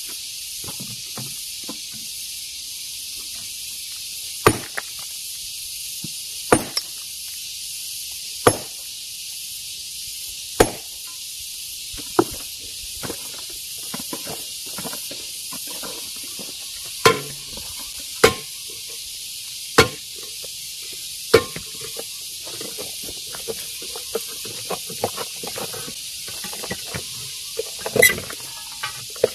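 Hammer blows on stone, about a dozen single sharp strikes spaced one to two seconds apart with a pause about halfway, and lighter clicks of chips and small stones between them. A steady high hiss runs underneath.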